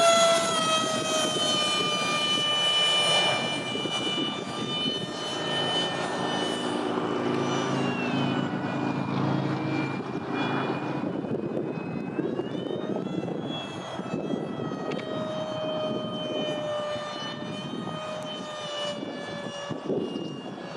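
Whine of the Freewing Eurofighter RC jet's electric ducted fan (WeMoTec Midi, six blades) in flight: loud and falling in pitch at the start as it passes, then fainter, rising and falling with throttle and distance. A low wind rumble runs underneath.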